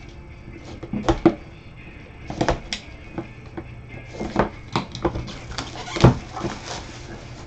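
A sealed cardboard trading-card box, a 2021 Leaf Metal Draft Football jumbo box, handled and set on the table by gloved hands while its plastic wrap is worked open: a series of sharp knocks, taps and crinkles, the loudest about six seconds in.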